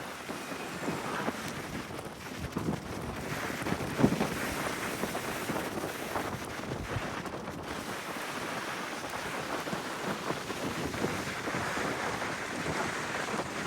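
Strong gusty wind buffeting the microphone over the rush of heavy surf, with a brief louder thump about four seconds in.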